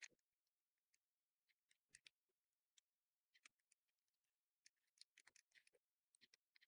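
Near silence with faint, scattered light clicks and ticks, as of bolts, handlebar holders and a Torx driver being handled.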